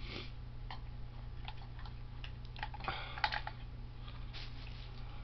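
Scattered light clicks and taps, a few of them clustered near the middle, over a steady low hum.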